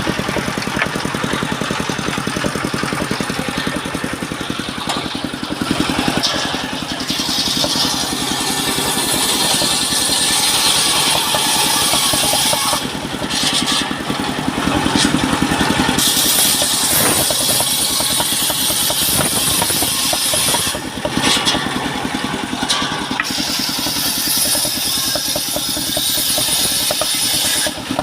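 Engine-driven mobile circular sawmill running steadily under load, its blade cutting through timber with a rushing high-pitched noise over the engine's fast pulse. The cutting noise drops away briefly about halfway through and again about three quarters in, as the blade runs between cuts.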